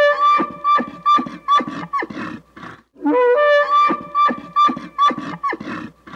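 Bull elk bugling twice. Each call rises into a high whistle that is chopped by a run of short, sharp grunts and trails off into rougher grunting.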